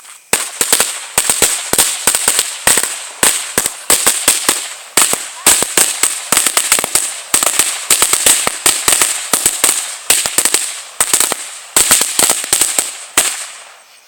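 A string of firecrackers going off in rapid, irregular sharp bangs with a crackling hiss, running for about thirteen seconds and stopping about a second before the end.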